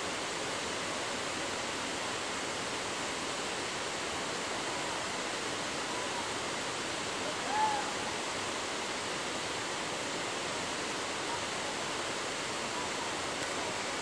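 Steady rush of falling water from Amicalola Falls. About halfway through, a brief faint whistle-like call sounds over it.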